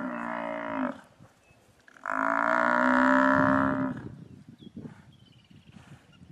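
Cape buffalo bellowing in distress as lions hang on its hindquarters: one long, moaning call that ends about a second in, then a second, louder call lasting nearly two seconds.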